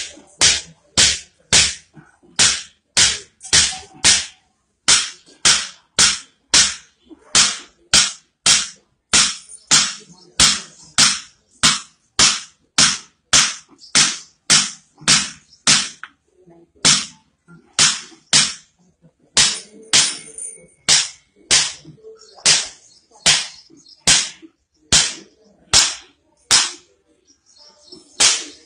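Rapid, rhythmic sharp smacks of blows struck on a man's back, about two a second with a brief pause midway, as a traditional healer beats along the spine in a bone-setting treatment.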